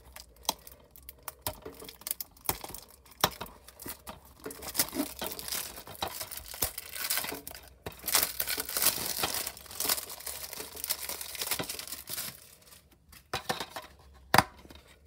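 Plastic shrink wrap being torn and crinkled off a plastic DVD case, in irregular crackles that grow dense about halfway through. A single sharp click near the end as the case is opened.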